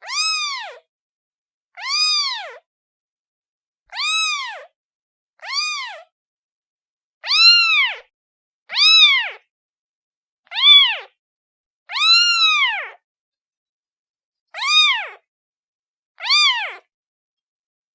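Domestic kitten meowing repeatedly: about ten high-pitched meows, each rising and then falling in pitch, one every second or two with silent gaps between.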